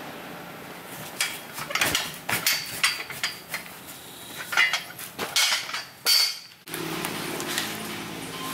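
Long steel tyre bar clanking and scraping against a steel truck wheel rim in a run of irregular metallic knocks as it levers at the tyre bead. About two-thirds of the way through, this cuts off suddenly and steady background music takes over.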